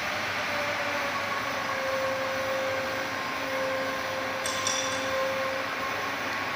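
CNC aluminium profile roll-bending machine running as its rollers feed and bend an aluminium profile: a steady mechanical hum with a faint whine that comes and goes, and a brief high-pitched squeak about four and a half seconds in.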